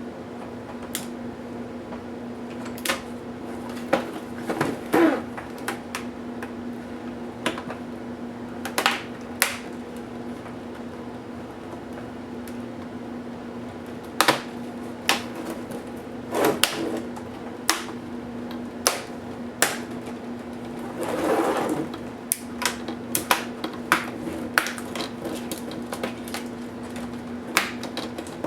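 Irregular clicks and taps of small plastic and metal laptop parts and tools being handled during disassembly, over a steady low hum. A short scraping rub comes about three-quarters of the way through.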